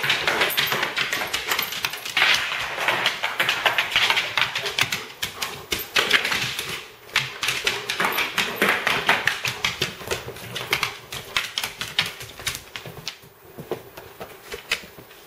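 A dog's claws clicking and scrabbling on a hardwood floor in quick runs of taps as it dashes and pounces, fading away near the end.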